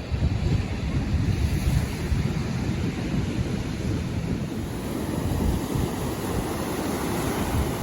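Rough ocean surf breaking and washing on the shore, with wind gusting on the microphone.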